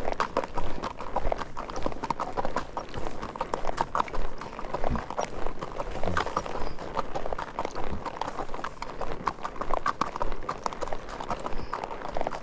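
Horses walking, their hooves clip-clopping in a steady run of short sharp strikes.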